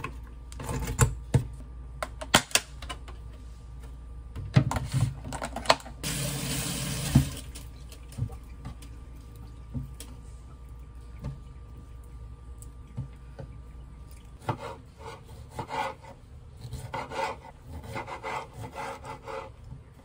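Slices of bread dropped into a pop-up toaster's slots with a few sharp clicks and knocks, and a hiss lasting about a second. In the last five seconds, a knife halves cherry tomatoes on a wooden cutting board, in quick, irregular chops against the board.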